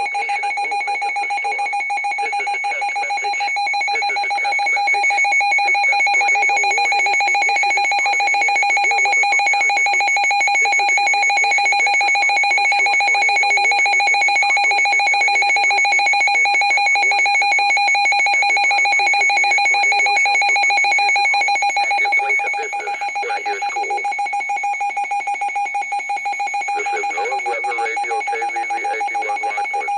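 Emergency Alert System attention signal: a loud, continuous electronic two-tone alert tone held steady, with a fast buzzy beat. It gets a little louder about five seconds in and drops back a little past twenty seconds.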